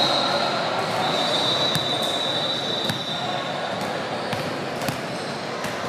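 Basketballs bouncing on a gym floor: a few scattered thumps over steady background noise.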